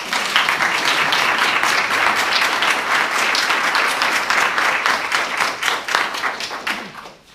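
Audience applauding: many hands clapping, starting at once and dying away near the end.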